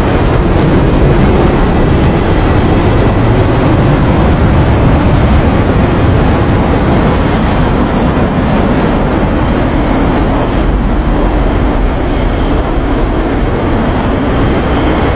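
Jet aircraft engines in flight: a loud, steady rushing noise with a deep rumble underneath.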